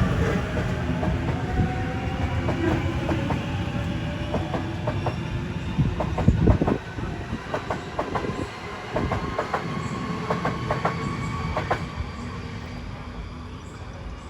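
Electric passenger train running past, its wheels clicking and clattering over rail joints with a steady rumble. It is loudest about six seconds in, then fades away.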